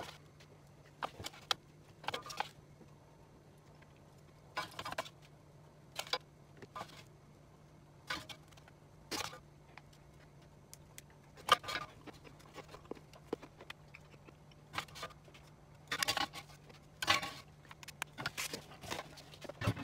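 Scattered light clicks and taps of chopsticks and a wooden spoon against glass food containers and an air fryer basket as pieces of air-fried chicken are dished out, busier near the end, over a faint steady low hum.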